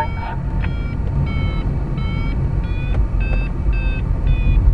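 A glider's audio variometer beeping in an even rhythm, about three short beeps every two seconds with the pitch creeping slowly up, the sign that the glider is climbing in lift. Under it, the steady rumble of air rushing past the cockpit of the PW-5 glider.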